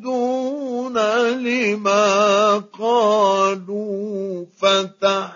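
A male Quran reciter chanting in the ornamented mujawwad style, holding long melodic notes with a wavering vibrato. The notes come in several phrases broken by short breaths.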